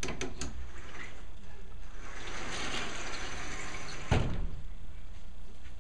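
Vertical sliding chalkboard being pushed up in its frame with a long wooden pole: a few light clicks, then a rushing slide lasting about two seconds, ended by a single sharp thud about four seconds in.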